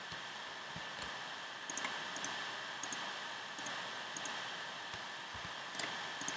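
Computer mouse clicking several times, short sharp clicks at uneven intervals, some in quick pairs, over a steady hiss.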